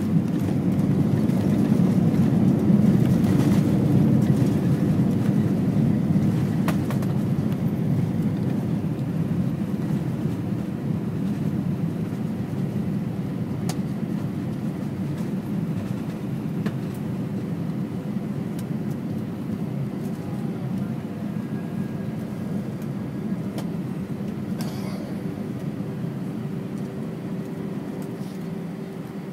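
Cabin noise of an Airbus A320-200 rolling out after landing: a thump right at the start, then engine noise that builds to a peak over the next few seconds, as reverse thrust would, and fades steadily as the airliner slows on the runway. Occasional knocks and rattles come through the cabin.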